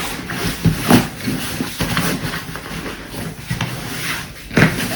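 Rustling and thumps of a self-inflating foam sleeping pad being rolled up and pressed down to squeeze the air out, with two louder scrapes or knocks, about a second in and near the end.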